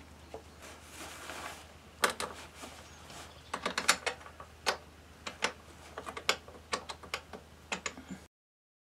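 Irregular sharp metallic clicks and taps of hand tools and parts being handled on a Yamaha YBR 125 motorcycle engine under reassembly, with a quick run of several about four seconds in. The sound cuts off abruptly near the end.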